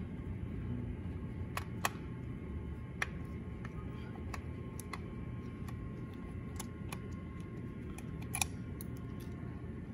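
A hand screwdriver working the small screws of an e-bike's controller cover plate: scattered light metal clicks and ticks as the tip seats and the screws turn, a few sharper ones about two seconds in and near the end, over a steady low background rumble.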